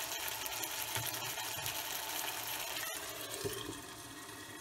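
Chicken simmering in its own released juices in an open pan, a steady bubbling hiss. After about three seconds it carries on quieter, with a light knock as the glass lid is handled.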